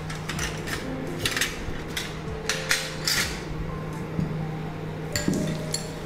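Clinking and knocking of a metal spoon and glass bowls, several sharp clinks, a few with a brief high ring, over a steady low hum.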